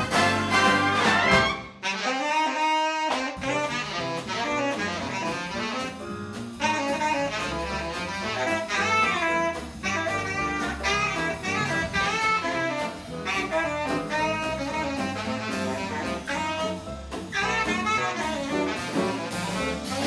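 Big band playing a swing chart live: saxophone, trombone and trumpet sections over drums and rhythm section. About two seconds in the low end drops out briefly under a held horn chord, then the full band comes back in.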